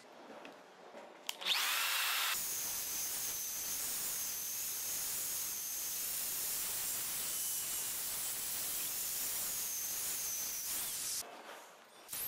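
Ryobi single-action rotary polisher with a sponge buff and fine compound, running on a car's painted roof panel. The electric motor starts about a second in with a quick rising whine, runs steadily with a high whine, then stops abruptly near the end.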